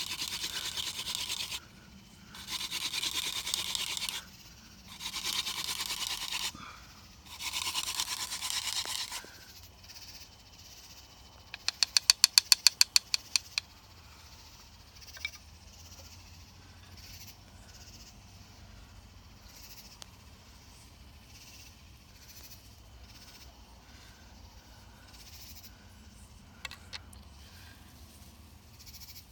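Wooden hand drill spindle spun between the palms, grinding into the hearth board in four scratchy runs of about two seconds each. About twelve seconds in comes a quick train of about a dozen sharp clicks, the loudest sound, followed by faint small scrapes.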